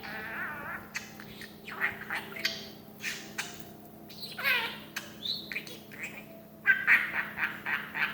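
A pet parrot making a string of short squawks and chattering calls, with one call gliding downward in pitch about four and a half seconds in.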